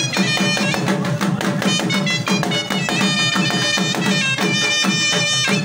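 Traditional dance music: a high, piping melody line over a fast, steady drum beat.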